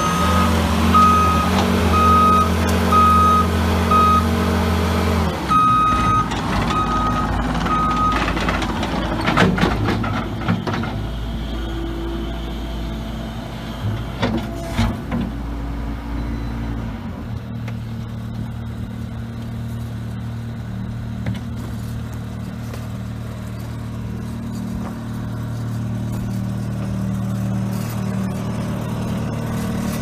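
2017 Case TV380 compact track loader's 90 hp diesel engine running as it drives, with its back-up alarm beeping steadily for the first several seconds while it reverses. A few knocks follow, then the engine settles into a steady idle.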